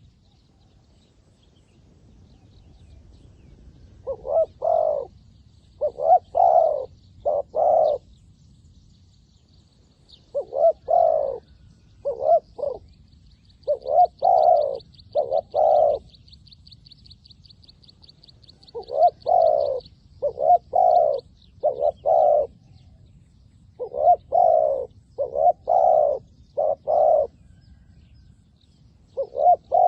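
A dove cooing: phrases of two to four low coos, repeated every few seconds. A fainter, fast, high-pitched trill from another small bird runs through the middle.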